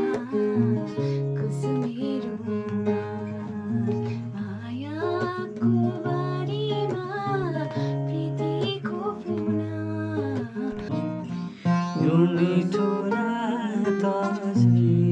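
A strummed acoustic guitar accompanying a voice singing a song.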